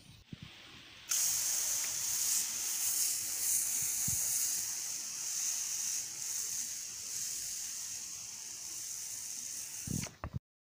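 Hand-pump pressure garden sprayer shooting a steady hissing jet of spray, starting suddenly about a second in and stopping shortly before the end.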